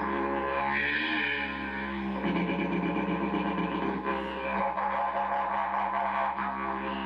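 Didgeridoo playing an unbroken low drone, its upper overtones shifting in colour throughout, with a quicker rhythmic pulsing in the middle.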